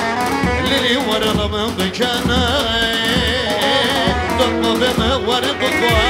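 Halay dance music: an ornamented melody line that wavers in pitch over a steady drum beat.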